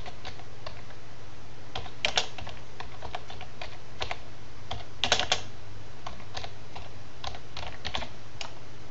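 Typing on a computer keyboard: scattered keystroke clicks, some in quick little runs, over a steady low hum.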